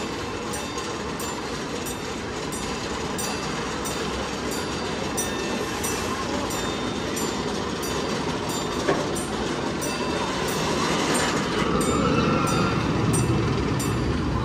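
Railroad crossing bell dinging steadily, about three strikes a second, while an approaching train's rumble grows louder toward the end, with a faint wheel squeal.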